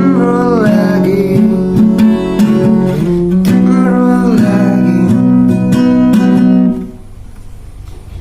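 Band music led by guitar, with held notes and a few downward-bending notes. It drops off sharply about seven seconds in, leaving a faint tail.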